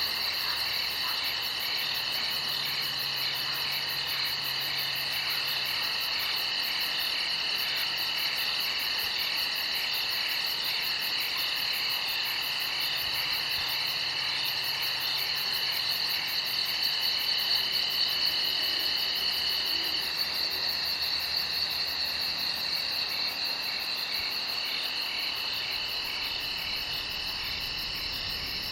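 A chorus of crickets chirping continuously, with several overlapping high-pitched trills at different pitches.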